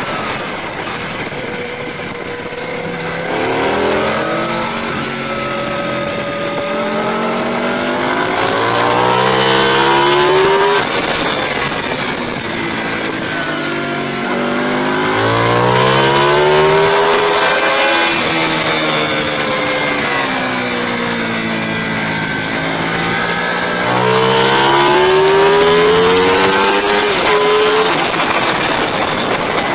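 Racing motorcycle engine heard from on board. Its revs climb under acceleration and fall back in several long sweeps.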